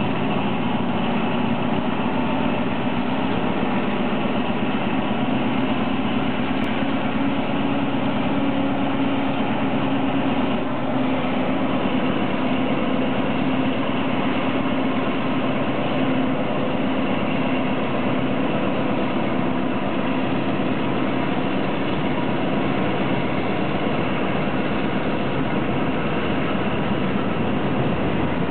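Diesel-electric locomotive engine working hard as it pulls a train of tank wagons away, a steady heavy drone whose note shifts slightly about eleven seconds in.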